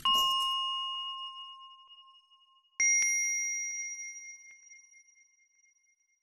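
Two synthetic chime dings from an end-screen animation. The first rings at the start, and a second, higher-pitched ding comes about three seconds in. Each fades out slowly.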